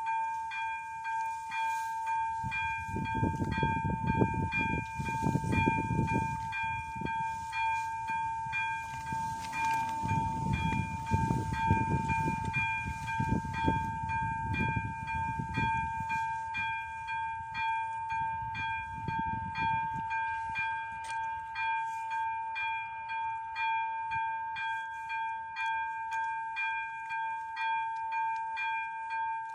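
AŽD 71 level-crossing warning signal's electronic bell ringing as a steady high tone with a regular pulse, sounded while its red lights flash for an approaching train. Bursts of low rumble come and go under it through the first two-thirds.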